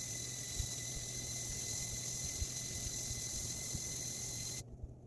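Steady background hiss with a thin, high-pitched whine and a low hum underneath, cutting off abruptly about four and a half seconds in, after which only a few faint clicks remain.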